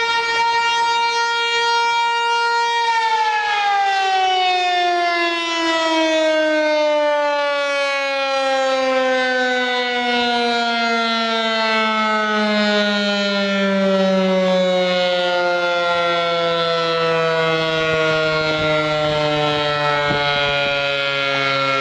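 ASC T-135 AC/DC outdoor warning siren sounding during a test. It holds a steady full-pitch wail for about three seconds, then winds down, its pitch falling slowly and steadily.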